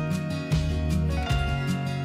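Background music with a steady beat and sustained melodic notes.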